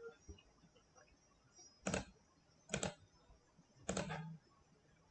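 Three quiet computer mouse clicks, about a second apart, over faint background hiss.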